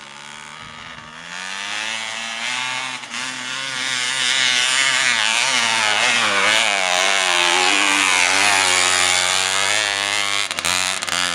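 Trail dirt bike engine revving as the bike rides a rough dirt path, its pitch rising and falling with the throttle. It grows louder over the first few seconds and stays loud as the bike passes close by.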